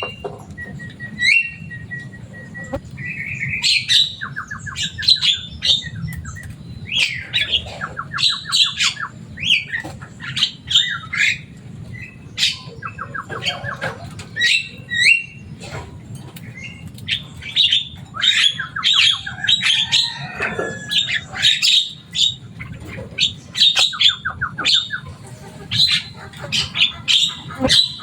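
Javan myna calling almost without pause: a busy, varied run of harsh squawks, chirps and gliding whistles broken by short, rapid rattling trills. A steady low hum runs underneath.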